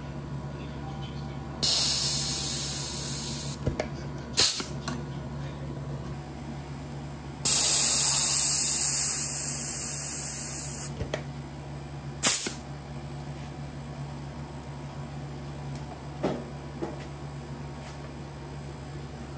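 Pneumatic rivet squeezer setting rivets in an aluminium wing spar: two long hisses of compressed air, each a few seconds, each followed by a sharp click of the squeezer. A couple of fainter clicks come near the end.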